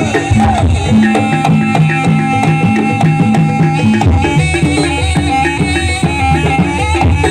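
Live Javanese gamelan music for a jaranan-style barong dance: kendang hand drums keep a busy rhythm under held, wavering melodic lines and struck metallophones. A deeper low part joins about halfway through.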